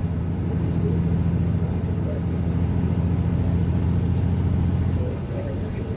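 Semi truck's diesel engine running steadily under road noise, heard from inside the cab while driving; the engine note drops slightly near the end.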